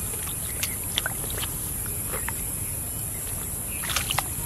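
Light sloshing and small splashes of shallow muddy water as a wading boy's feet and the tail of the large fish he is holding move in it, with a cluster of splashes near the end, over a steady background hiss.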